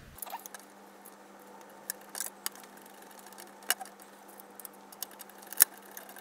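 Small screwdriver driving screws into a plastic blaster shell: a few scattered light clicks and ticks of driver, screw and plastic, with the sharpest click about five and a half seconds in, over a faint steady hum.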